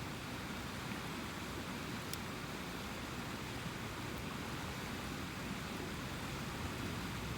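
Steady rushing of the Petitcodiac River's water, an even hiss with a low rumble beneath it.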